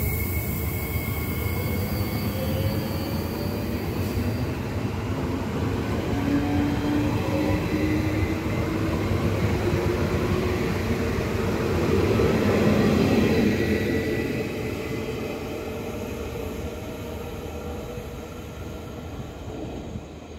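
BreizhGo double-deck electric train passing, a steady rumble and rush of wheels on rail with faint whining tones. It is loudest a little past the middle, then fades as the tail end moves away.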